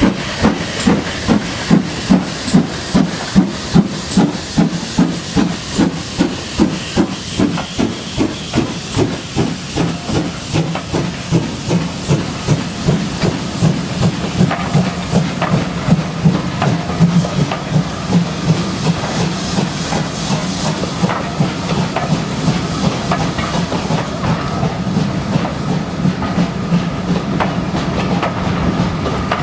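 Steam locomotive exhaust chuffing as it pulls away, about two beats a second at first, then quickening and growing fainter. The steadier running noise of the train takes over near the end.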